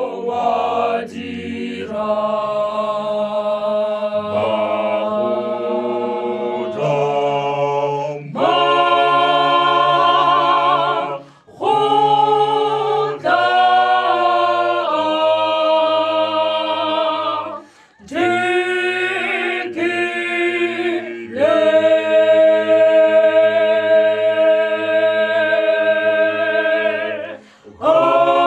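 Small mixed gospel vocal group singing unaccompanied in harmony, holding long chords, with short breaks between phrases.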